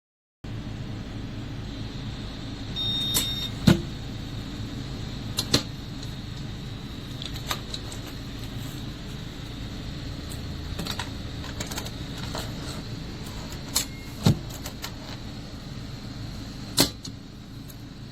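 Handling of a small biometric handgun safe: a short electronic beep about three seconds in, then scattered sharp clicks and knocks over a steady hiss.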